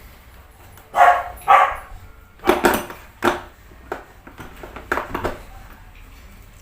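A dog barking: two loud barks about a second in, half a second apart, then a few more, fading to fainter ones around the fifth second.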